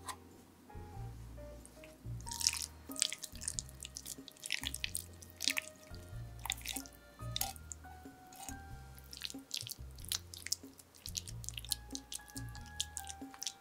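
Wet, sticky squelches and plops of cooked apple filling sliding from a bowl into a pastry-lined tart tin and being pushed about with a spatula, in many short irregular smacks from about two seconds in. Soft background music plays throughout.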